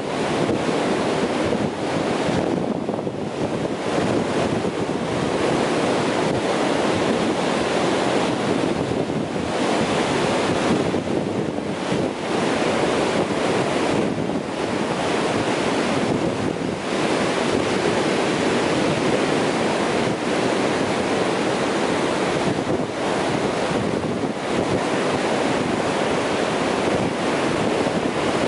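Ocean surf breaking and washing up onto a sandy beach: a continuous rushing wash that swells and eases slightly with the waves.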